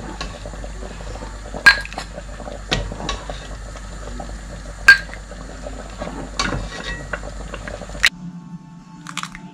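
Thick chicken corn soup being ladled from a pot into a bowl: the ladle clinks sharply against the pot and bowl several times, with soft pouring and splashing of the soup. A steady low background hum cuts off abruptly near the end.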